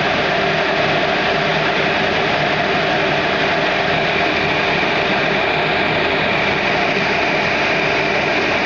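Oil-fired rotary lead-smelting furnace running, its burner and high-pressure air blower giving a loud, steady noise with a few steady tones in it.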